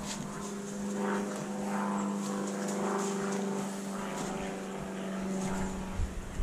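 A steady engine drone holding one pitch throughout, with faint voices in the background.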